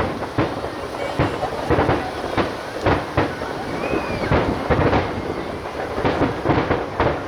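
Aerial fireworks shells bursting in quick succession, heard from about 1.2 km away as a rolling series of booms and crackles.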